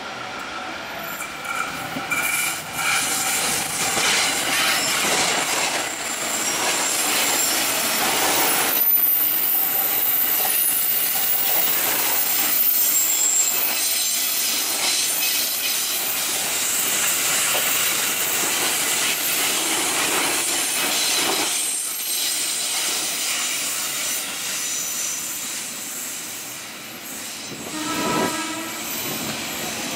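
JR 205 series electric commuter train rolling past, with wheel squeal on the rails, loudest as it passes about ten seconds in. A short horn sounds near the end.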